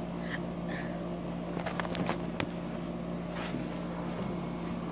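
A steady low hum with a few light clicks and taps, around two seconds in and again near three and a half seconds, from small objects being handled.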